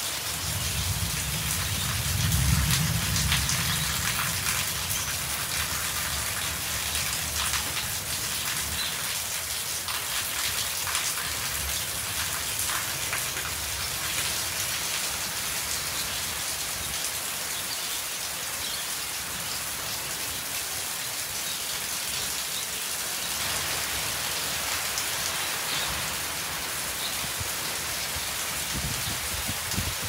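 Steady rain falling on a yard, trees and wet ground, an even hiss. A low rumble swells about a second in, is loudest a couple of seconds in and fades away over the next several seconds; fainter low rumbles return later.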